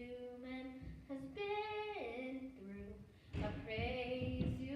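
A young voice singing unaccompanied, holding drawn-out notes that slide down between pitches.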